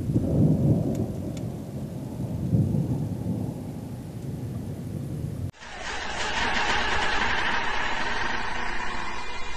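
Thunder rolling and rumbling low, slowly fading. About five and a half seconds in it cuts off suddenly and music takes over.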